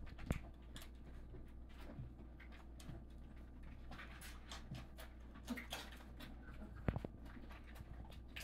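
Labrador puppies feeding at a stainless steel dish of gruel: faint lapping with scattered small clicks and knocks, a sharper double knock near seven seconds.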